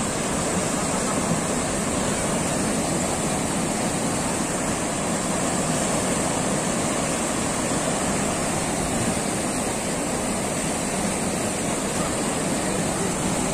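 Whitewater rapids rushing steadily through a concrete slalom canoe channel: a continuous, even wash of churning water.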